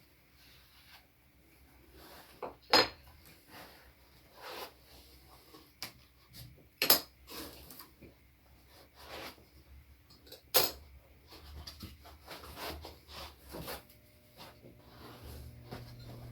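Hard engraver parts and packing being handled and set down on a table: scattered knocks and clinks, with three sharp clicks about 3, 7 and 10 seconds in.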